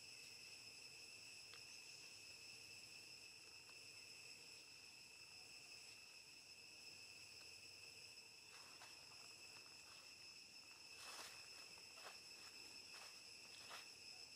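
Faint, steady high-pitched insect drone with no break. In the second half a scatter of faint clicks and short rustles joins it.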